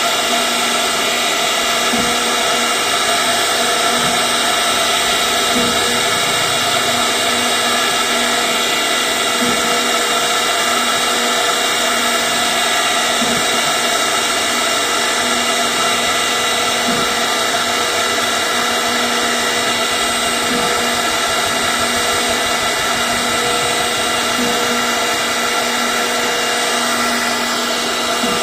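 CNC router spindle running steadily with a constant high whine while carving wood.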